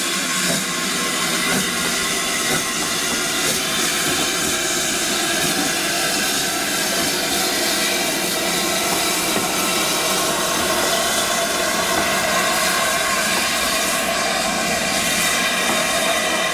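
Steam locomotive 70000 Britannia, a BR Standard Class 7 Pacific, letting off a loud, steady hiss of steam as it moves slowly past.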